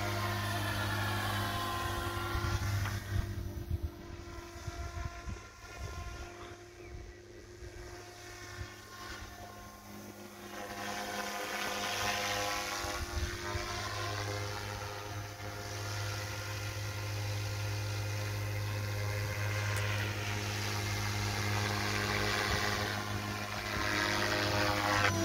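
Electric SAB Goblin 380 radio-controlled helicopter flying: a steady rotor hum under a high motor whine. Its pitch sweeps down each time it passes close, three times, and it grows fainter for several seconds while it is farther out.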